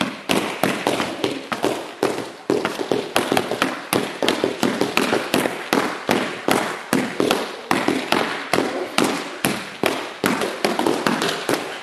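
Many hand strikes landing on padded training pads from several pairs working at once: a fast, uneven run of overlapping slaps and thuds, several a second.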